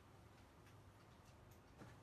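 Near silence: room tone with a low hum and a few faint ticks, the clearest near the end.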